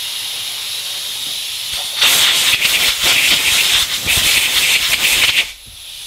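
Compressed air hissing from a blowgun as it blows fine sanding dust off a road wheel. A moderate steady hiss turns into a louder, harsher blast about two seconds in, which eases off shortly before the end.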